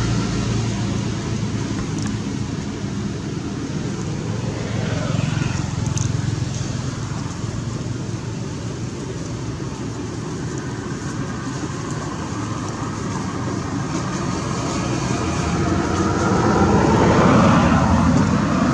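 Road traffic passing: a steady rumble of vehicle engines and tyres that swells about five seconds in and again near the end as vehicles go by.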